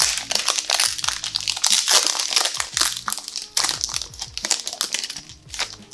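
Foil Pokémon Evolutions booster pack wrapper being opened and crinkled by hand: a dense run of crackling that thins out near the end.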